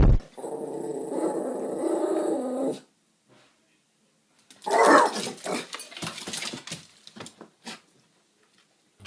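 A dog growling for about two seconds. After a silent gap, a short loud dog call and a run of scattered clicks and scuffling.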